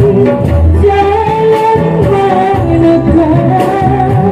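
A woman singing into a microphone, holding long notes over instrumental backing music with a steady beat.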